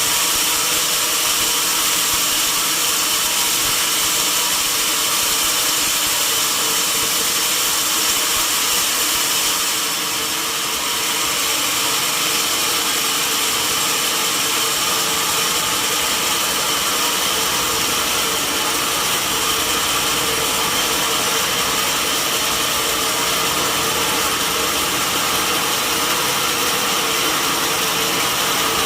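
Sawmill saw running steadily through a mahogany log: a loud, constant machine noise with several steady whining tones, dipping slightly about ten seconds in.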